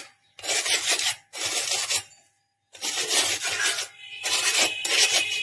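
Round cracker biscuits being crushed into crumbs under the base of a steel bowl, ground and scraped against a tray in about four strokes, with a short pause a little before the middle.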